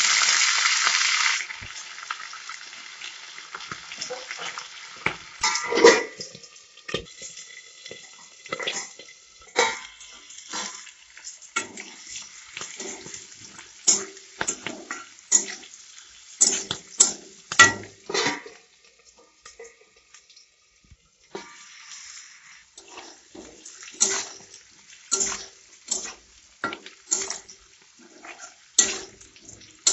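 Green peas dropped into hot mustard oil with small potatoes in a kadai, setting off a loud sizzle for about a second and a half. The frying then goes on quieter while a spatula scrapes and clinks against the kadai as the potatoes and peas are stirred, the clinks coming thicker in the second half.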